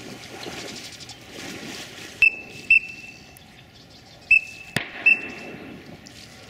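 Water sloshing as someone wades through shallow, mucky pond water, then four short, high, whistled notes, each starting sharply.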